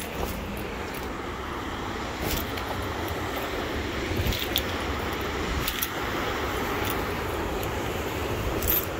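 Footsteps in sneakers scuffing over gritty stone and dirt, with a few sharp scrapes standing out, over a steady low outdoor rumble.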